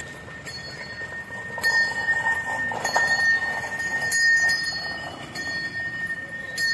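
Metal bells clinking at irregular intervals, each strike ringing briefly, over a steady high whine and open-air street noise.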